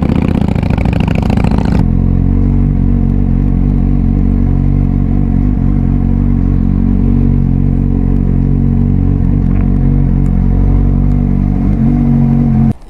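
Suzuki GSX-S750's inline-four engine with an SC-Project aftermarket silencer, picked up by a helmet microphone. Wind rush covers it for about the first two seconds. After that the engine runs at a steady, unchanging speed with little wind, until the sound cuts off abruptly near the end.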